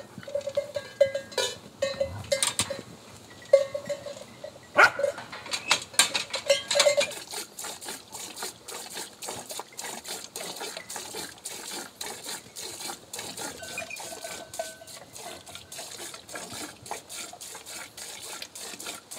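Bells on sheep clanking in short ringing notes, loudest in the first seven seconds. Then a quick, regular swishing rhythm of milk squirted by hand from a ewe's teats.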